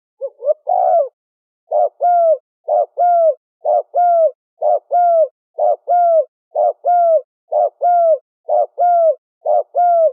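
Spotted dove cooing. A quick cluster of notes comes near the start, then a steady run of fast two-part coos, a short note and a longer falling note, repeated about once a second.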